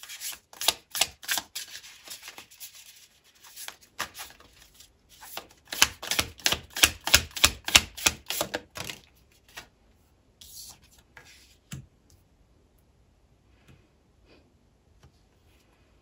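Tarot cards being shuffled by hand: quick, regular slaps of cards, about four or five a second, with a short break about three seconds in, thinning out after about nine seconds and dying away.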